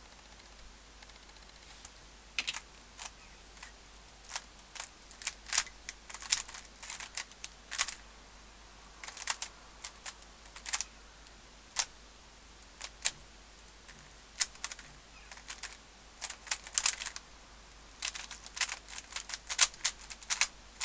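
Magnetic Z-cube 3x3 speedcube being turned fast during a solve: irregular runs of sharp plastic clicks and clacks, separated by short pauses, beginning about two seconds in. The cube is not yet lubricated.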